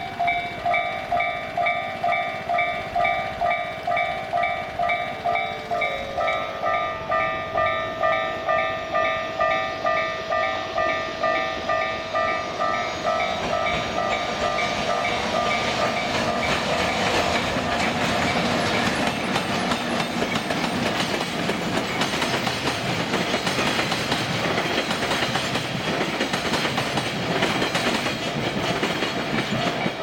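Japanese level-crossing warning bells of two crossings ringing together, about two strikes a second in two different tones. From about 14 seconds in, a freight train of tank wagons hauled by an electric locomotive passes, and its rumble and wheel clatter drown out the bells.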